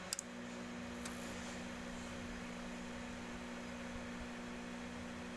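Microwave oven running after a repair, with a steady electrical hum. A couple of sharp clicks come just after the start, and a second, higher hum tone then joins and holds steady.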